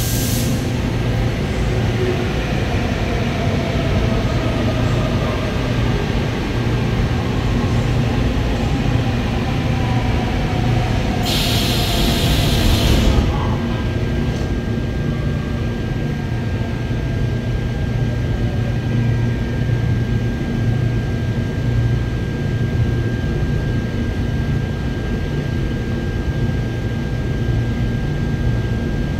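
Seoul Subway Line 4 train heard from on board: a steady rumble, with a whine that falls in pitch over the first dozen seconds as the train slows. A brief loud hiss comes about 11 seconds in, and a steady high tone then holds over the rumble.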